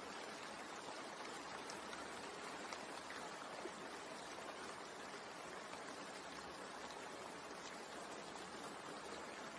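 Steady rain sound: an even, unbroken hiss of falling rain with faint scattered drop ticks.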